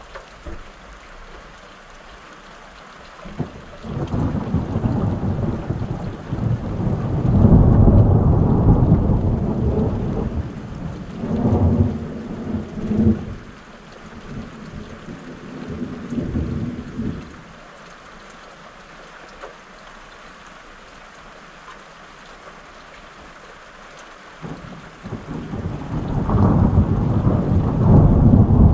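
Rolling thunder over steady rain. A long rumble builds a few seconds in and rolls on in several swells for about fourteen seconds before dying away. A second roll of thunder builds near the end.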